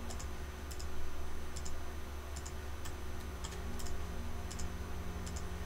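Computer mouse buttons clicking, about ten faint, sharp clicks at irregular intervals, some in quick press-and-release pairs, over a steady low hum.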